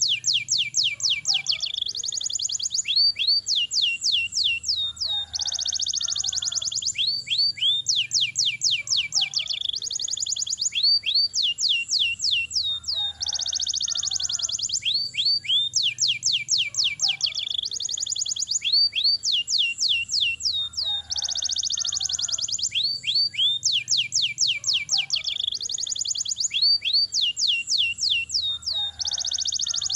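Domestic canary singing a long, unbroken rolling song: fast trills of repeated rising notes alternating with buzzy rolls, high-pitched, the phrases recurring every few seconds.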